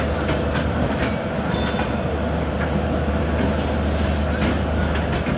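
Passenger coaches of the Rajdhani Express rolling past close by as the train pulls out, with a steady low rumbling hum and irregular clicks and clacks of the wheels over the rail joints.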